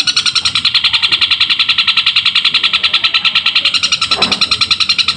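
Long-tailed shrike (cendet) of the Tengkek Buto type singing its sparrow-mimic song: an unbroken, loud, fast chatter of high chirps, about a dozen a second, imitating the tree sparrow in the continuous 'tarung sambung' fighting style.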